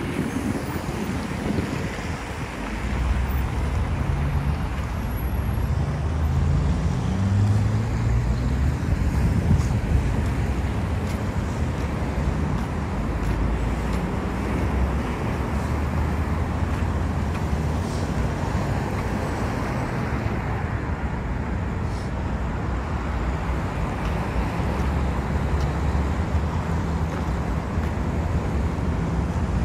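Steady road traffic on a wide multi-lane city avenue, with cars and engines passing. A deeper engine note climbs in pitch between about six and ten seconds in, as a vehicle accelerates.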